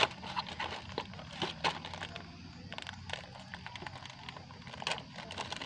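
Light crinkling and scattered small clicks of a plastic packet being handled and opened by hand.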